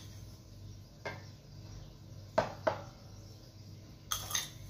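A metal teaspoon clinking about four times against a glass and a stainless steel saucepan as spoonfuls of sugar are scooped and tipped in, two of the clinks close together midway.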